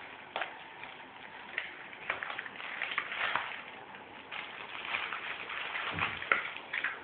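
Irregular scratching, rustling and light tapping of kittens' paws and claws on a vinyl dance mat, with a few sharper knocks, busiest in the second half.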